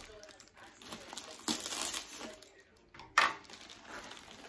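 Plastic packaging crinkling and rustling as a plastic shipping bag is pulled and torn open by hand, with one sharper, louder crackle about three seconds in.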